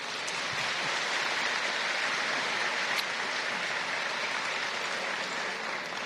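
Assembly audience applauding steadily, easing off a little near the end.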